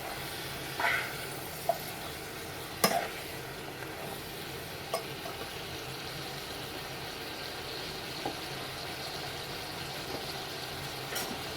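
Mixed vegetables sizzling steadily in a frying pan, with a few clinks and scrapes of a utensil stirring them, the loudest about three seconds in.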